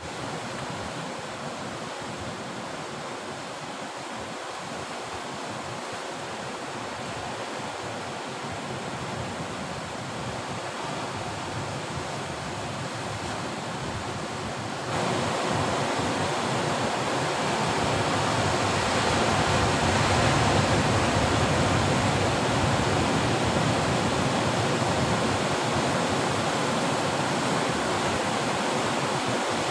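Sea surf breaking and washing over rocks, a steady rushing that suddenly gets louder and fuller about halfway through.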